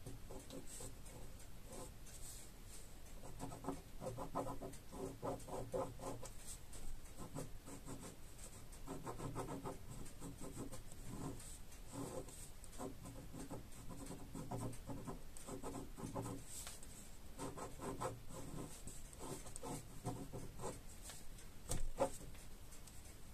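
Pen scratching on paper as lines are drawn and hatched, in short bursts of quick strokes with pauses between them. A single sharp tap near the end.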